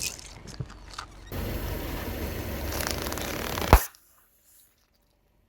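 Crushing from a car's tyre rolling over an object: faint scattered crackles, then a steady noisy rumble for a couple of seconds that ends in one sharp snap, after which the sound cuts to near silence.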